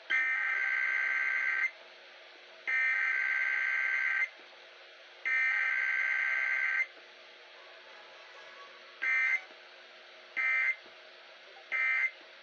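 Emergency Alert System SAME data signal on a required weekly test. Three bursts of high, two-tone digital data about a second and a half long, a second apart, carry the alert header. Three short bursts of the same tones follow: the end-of-message code.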